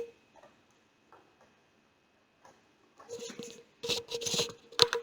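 Computer mouse clicks and taps. After a quiet stretch, a quick cluster of clicks comes about three seconds in, and one sharp click near the end.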